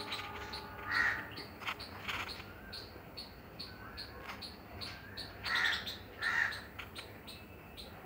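A crow cawing a few times, single short caws, with the loudest pair about two-thirds of the way through. Behind it, a squirrel's high chipping call repeats steadily, about two and a half chips a second.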